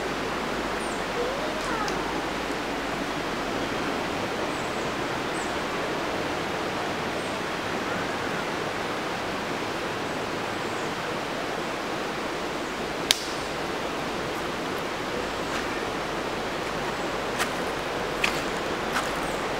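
River water running over rocks, a steady rush. One sharp click about two thirds of the way through, and a few smaller clicks near the end.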